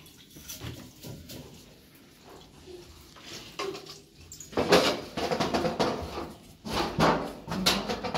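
Scrubbing, knocking and scraping at a ceramic bathroom washbasin as a straw-bristle brush is worked at the tap. The sounds are light at first and grow louder and busier about halfway through.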